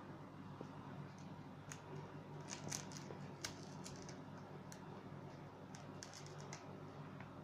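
Faint scattered clicks and light taps from hands handling and pressing a MacBook Air's LCD panel into its lid, over a low steady hum. The clicks come in small clusters, about two seconds in and again near the end.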